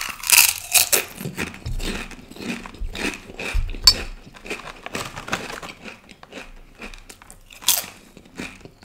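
Biting into a crisp spinach nacho chip with a loud crunch, then chewing it: an irregular run of crackling crunches, with single sharper crunches about four seconds in and near the end.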